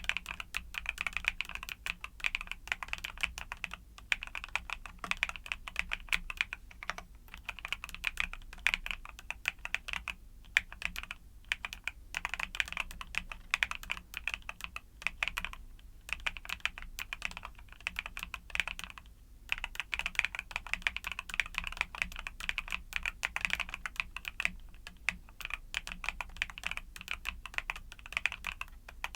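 Continuous fast typing on a YUNZII mechanical keyboard with Cocoa Cream switches: dense runs of quick keystrokes, broken by brief pauses about 4, 10, 15 and 19 seconds in.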